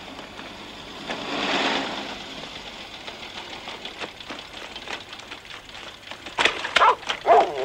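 Footsteps of people running through mud and puddles, an irregular run of slaps and splashes. Near the end a dog barks a few times.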